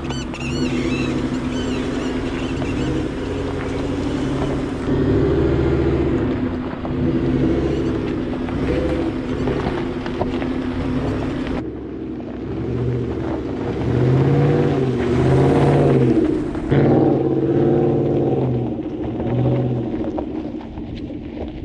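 Ford F-150's 5.0 V8 through its Corsa exhaust, pulling under throttle on an off-road trail, the revs rising and falling again and again.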